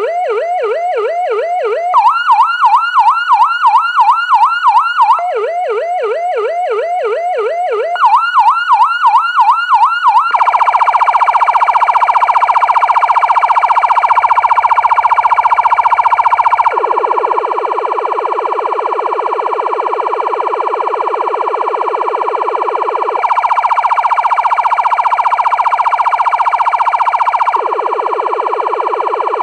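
SA5200 16-tone electronic police siren running through its tones. It starts with a fast repeating rising yelp, about three sweeps a second, that jumps between a lower and a higher pitch every few seconds. About ten seconds in it switches to a steady tone, with a slower rising sweep cutting in beneath it several times.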